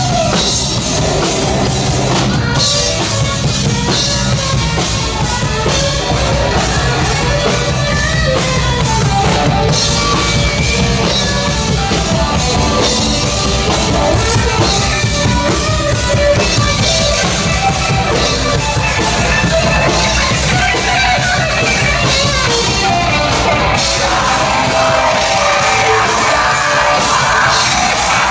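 Live punk-metal band playing loud and fast, with a pounding drum kit under distorted guitar and shouted, yelled vocals.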